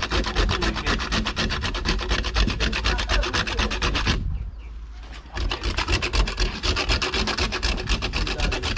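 Cinnamon being ground by hand: a fast, even rasping of about nine strokes a second, which breaks off for about a second midway and then starts again.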